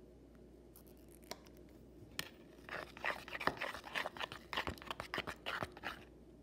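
Plastic spoon stirring a thick shampoo-and-salt slime mixture in a plastic bowl, scraping and clicking against the bowl in quick, irregular strokes. It starts about two and a half seconds in, after a couple of single taps.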